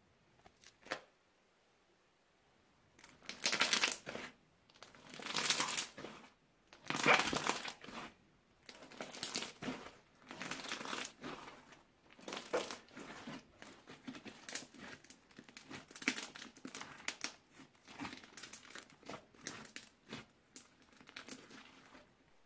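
Crunchy slime made with plastic bags being squeezed and worked, crinkling and crackling in repeated bursts. A couple of faint clicks come first, the crackling starts about three seconds in, and the loudest bursts are in the first few seconds after that.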